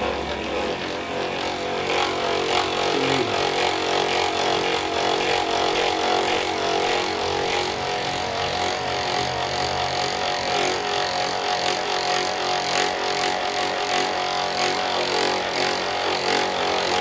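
A handheld electric massager's motor running steadily, with a light tapping about twice a second in the second half.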